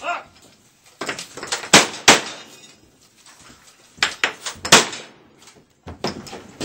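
A string of gunshots from a cowboy action shooter: sharp single reports at irregular spacing, two close together about two seconds in and two more between four and five seconds in.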